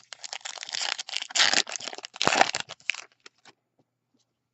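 Wrapper of a pack of Topps baseball cards crinkling and tearing as it is opened, a dense crackle for about three seconds, loudest around one and a half and two and a quarter seconds in. A few faint clicks follow.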